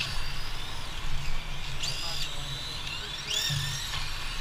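Electric motors of 1/10-scale radio-controlled Formula 1 cars whining as the cars race past, the pitch rising and falling as they accelerate and brake through the corners.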